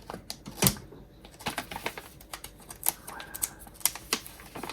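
Plastic snack packaging crinkling and crackling as it is cut open and handled, a scatter of irregular short clicks.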